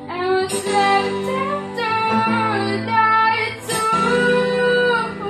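A woman's voice singing long, held notes over music with sustained low chords.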